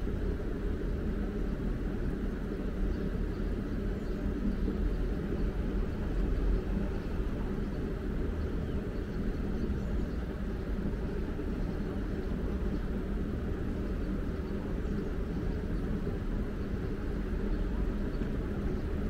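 Steady low vehicle rumble that keeps on evenly, with no distinct knocks or tones.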